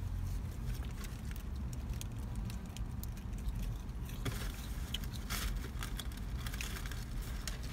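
Eating sounds: chewing and the crinkle of paper food wrappers, with scattered small clicks that thicken about halfway through, over a steady low rumble.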